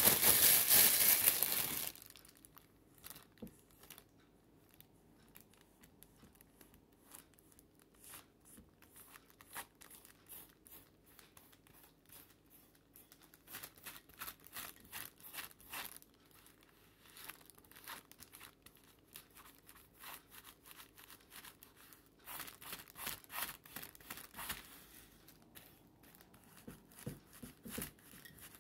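Thin clear plastic crinkling loudly for about two seconds as it is handled, then soft, irregular rustling as the plastic-covered hand smooths a glued paper napkin onto a terracotta pot. The rustling grows busier twice, in the middle and a few seconds before the end.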